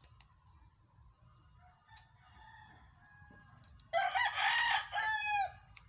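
A rooster crows once, about four seconds in. The crow lasts about a second and a half and ends on a falling note.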